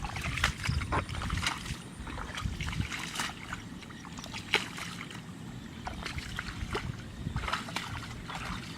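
Water splashing and sloshing in short, irregular splashes, over a steady low rumble.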